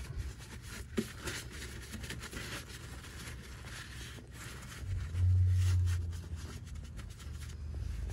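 Paper towel rubbing and rustling in irregular strokes as the refitted hydraulic suspension filter housing is wiped clean. A steady low hum runs underneath, rising to a louder low drone for about a second about five seconds in.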